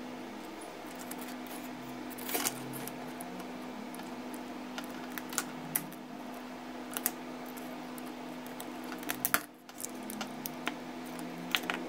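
Small clicks and taps of plastic and metal parts as a pager's LCD display and circuit board are pried apart by hand, a handful of sharp clicks scattered over a steady low hum.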